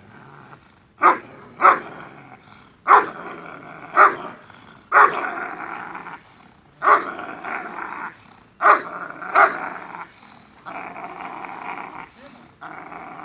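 A dog barks aggressively in protection training as a helper provokes it with a cloth. There are about eight sharp barks, several close together, with rough growling that runs on between them in the second half.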